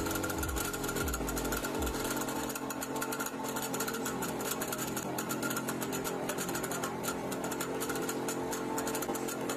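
Homemade motor-driven vegetable cutting machine running, its cutter wheel and conveyor belt turning. A steady mechanical hum with fast ticking.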